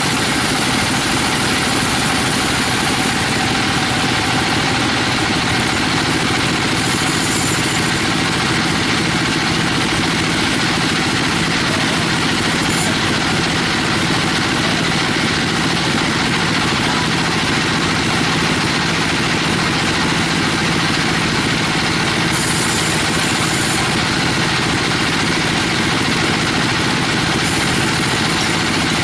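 A 42-inch bandsaw mill running steadily while a teak log is fed through the blade: a continuous mechanical drone with the blade's cutting noise over it.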